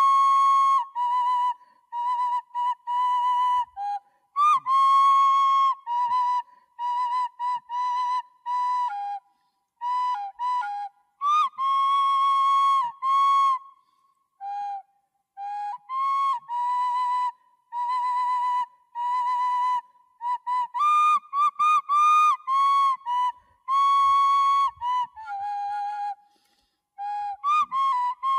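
Solo flute-like wind instrument playing an unaccompanied melody of short notes, many sliding up into pitch, in phrases broken by brief pauses.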